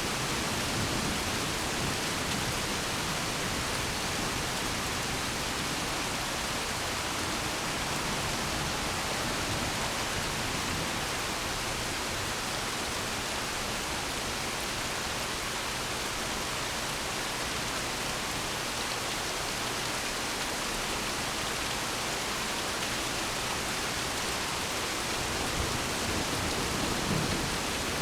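Steady rain falling in a thunderstorm, an even hiss that holds the same level throughout.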